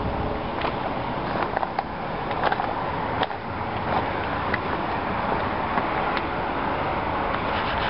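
Footsteps crunching over dry grass and loose stones, with scattered short clicks, over a steady rushing noise of wind on the microphone.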